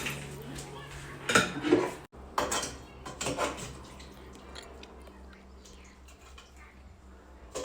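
Dishes and cutlery clinking and knocking, several times in the first few seconds and once more near the end.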